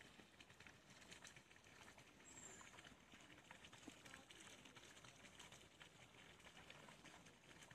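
Near silence: faint outdoor ambience with scattered soft ticks and rustling, and one brief high chirp a little over two seconds in.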